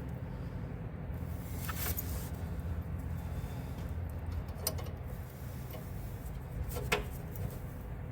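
A wrench working a tight, heat-soaked brake-line fitting: three short sharp metal clicks about 2, 4.7 and 7 seconds in, over a steady low hum.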